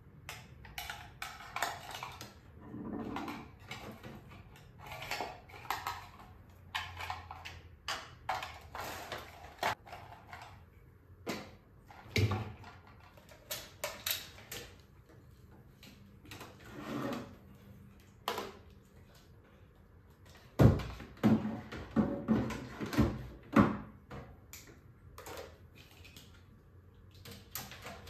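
Handling noise: a string of small clicks, taps and rustles as small objects and cables are moved about on a desk, with a run of louder knocks about twenty seconds in.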